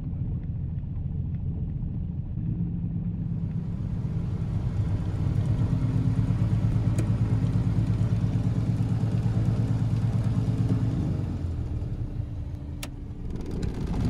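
Lake Renegade amphibian's pylon-mounted pusher six-cylinder piston engine running at low taxi power, getting a little louder about four seconds in and easing back off after about eleven seconds.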